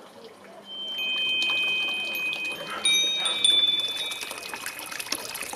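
Chimes struck a few times, each set of high, clear notes ringing out, over a background of trickling, pouring water.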